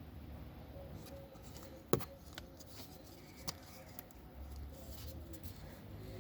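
Handling noises: a sharp click about two seconds in, then a few softer clicks over a low hum.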